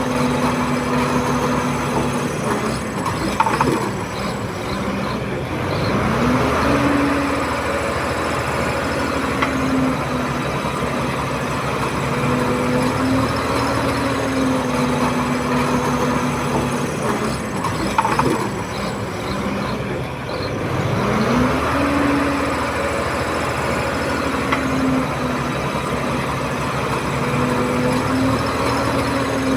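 Komatsu D31P crawler bulldozer's diesel engine working steadily. Twice, about 4 s in and again about 18 s in, a clank comes as the engine note dips and then climbs back up.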